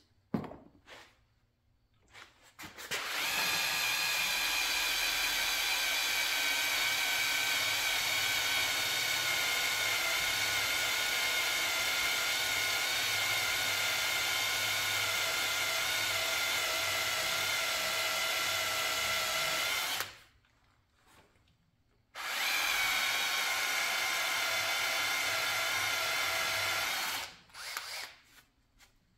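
Handheld electric drill boring a freehand hole into a centre-punched metal part. It runs with a steady whine for about seventeen seconds, stops briefly, then drills again for about five seconds. There are a few short clicks before the first run.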